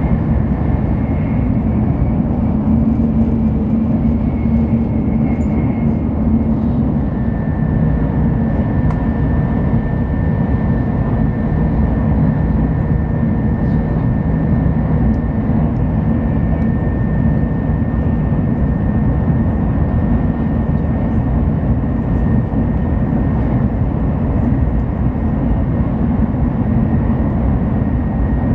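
Steady rumble and rushing noise inside the passenger car of a Shinkansen Hikari bullet train running along the line, with a faint steady whine over it.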